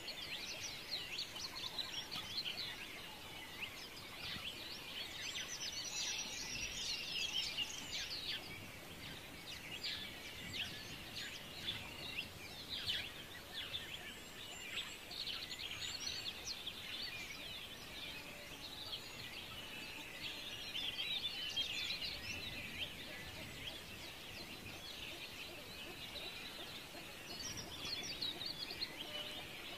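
Many small birds chirping, their short calls overlapping in a continuous chatter.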